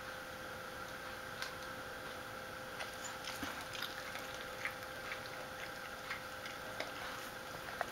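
A dog's claws clicking irregularly on a hard vinyl floor as it walks about, over a steady background hum.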